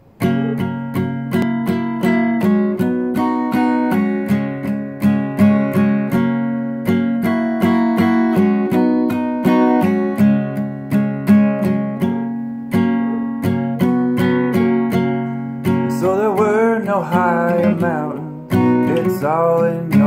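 Acoustic guitar with a capo, strummed in a steady rhythm of about three strokes a second, starting suddenly. A man's voice joins in singing about sixteen seconds in.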